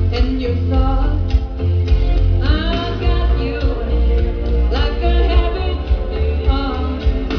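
Music: a song with a singing voice over a strong, steady bass line.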